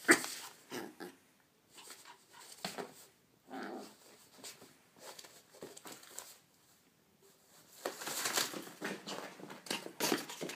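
A teacup Yorkshire terrier rough-playing with newspaper sheets: irregular bursts of paper rustling and crinkling, with the dog's own small noises among them. There is a loud burst at the very start and a longer, denser spell of rustling about eight seconds in.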